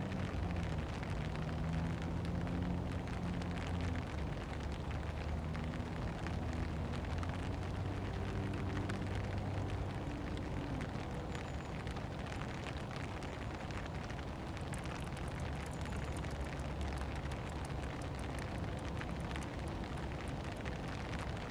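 Steady rain falling, an even hiss, with a low droning hum through the first half and sharper scattered ticks in the second half.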